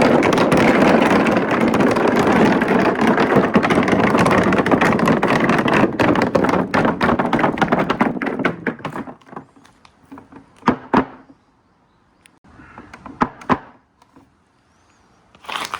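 Many marbles rolling and clattering down a four-tier slope marble run: a dense, continuous rattle that thins out after about six seconds and dies away by about nine. A few single clicks follow as the last marbles knock, then a brief burst of clatter near the end.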